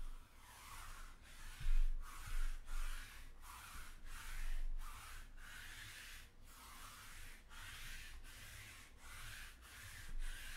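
Sticky lint roller rolled quickly back and forth over a fabric mat: a run of rasping swishes, about one stroke every two-thirds of a second, with a few dull bumps.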